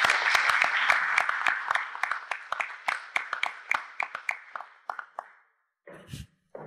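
Audience applauding, thinning to scattered claps and dying away about five seconds in; a brief low thump follows about a second later.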